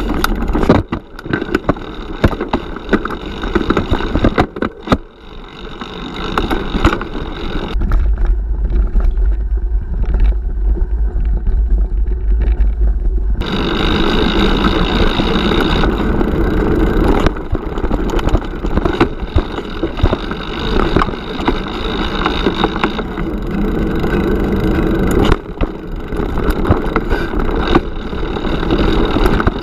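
Mountain bike riding down a rocky singletrack, heard from a camera fixed to the bike: tyres rolling over stones and dirt, with many rattles and knocks from the bike over the bumps. Wind rumbles on the microphone, strongest from about 8 to 13 seconds in.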